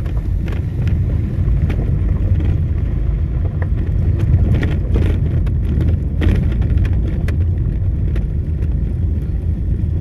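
Car interior noise while driving slowly on a rough dirt and gravel road: a steady low rumble of engine and tyres, with frequent small clicks and knocks as the car rides over stones and bumps.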